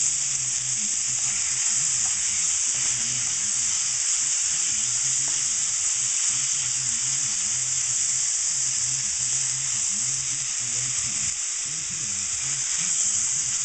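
Diced chicken sizzling steadily in smoking-hot oil in a wok while being stirred around the pan.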